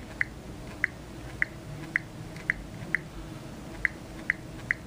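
Short, high beeps from phone keyboards, one per keypress as a web address is typed in: about ten pips, all at the same pitch, irregularly spaced.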